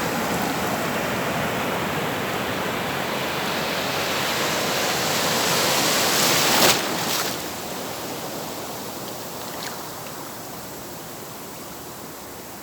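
Atlantic surf: a wave swells up over about six seconds, breaks about two thirds of the way in, then falls away to a quieter wash on the shore.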